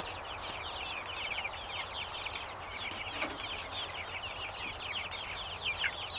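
A flock of young chickens peeping without a break, a dense chorus of short falling peeps, over a steady high drone of insects.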